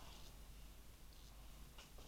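Near silence: room tone with a low hum and a few faint, brief handling rustles or clicks.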